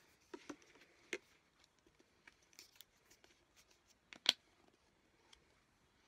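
Plastic bubble-bath bottles handled, giving light scattered taps and clicks, with one sharper click about four seconds in.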